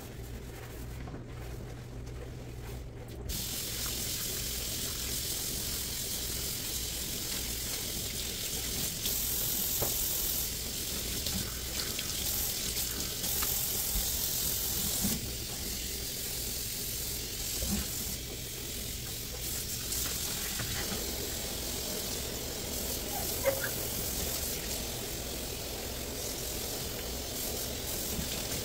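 Kitchen faucet running water into a stainless steel sink to rinse soap off the basin, starting about three seconds in. A few light knocks of hands on the steel.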